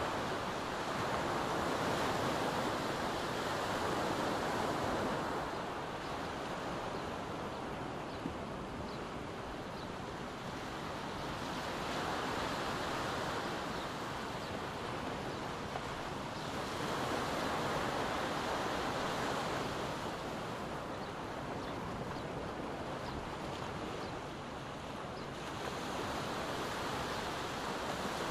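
Small ocean waves breaking and washing up a sandy beach. The surf swells and eases every few seconds.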